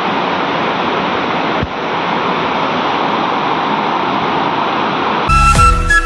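Steady rush of white water from river rapids and a small cascade. About five seconds in, flute music comes in over it.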